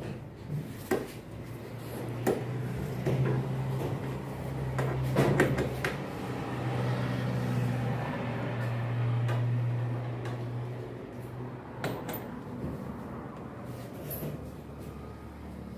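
Clicks and knocks of a 13 mm wrench and metal parts while a washing-machine counterweight is bolted onto the tub. Under them runs a steady low hum that grows louder for several seconds in the middle, then fades.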